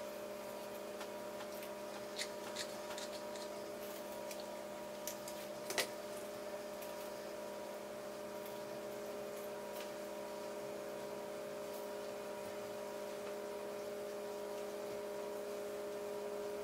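A steady electrical hum made of several held tones, with a few faint clicks a couple of seconds in and again around six seconds.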